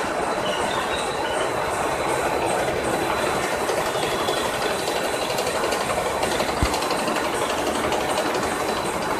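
Corn-puff snack production line running: the twin-screw extruder, conveyors and rotating stainless-steel drum make a steady mechanical rattle with a thin, constant high whine.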